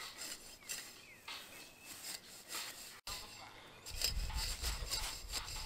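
Rake tines scraping through dry thatch and grass in quick repeated strokes. A low rumble joins about four seconds in.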